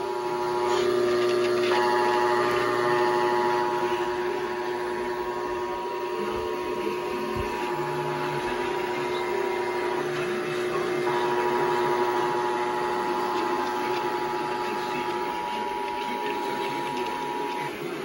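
Emergency Alert System attention signal: the steady two-tone alert tone (853 and 960 Hz) playing from a broadcast radio over hiss. It briefly cuts out about a second in and again around ten seconds.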